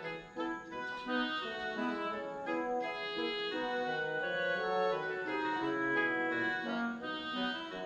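Background music: a light melody on an organ-like keyboard, with notes changing at a lively pace.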